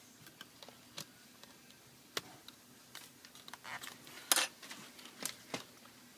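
Scattered light clicks and taps of small laptop parts and cables being handled during reassembly, with one louder, brief rattly click a little past the middle.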